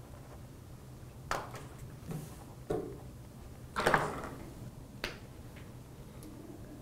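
A few light knocks and clicks of small items being picked up and set down on a desk, the loudest about four seconds in, over a low room hum.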